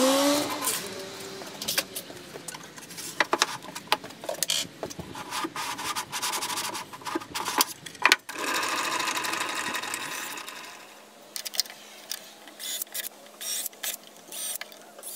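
Cordless drill-driver running screws into a wooden sled fence. It runs steadily for about two seconds around the middle, then comes in short bursts near the end, among knocks and clatter of plywood pieces being handled and set down.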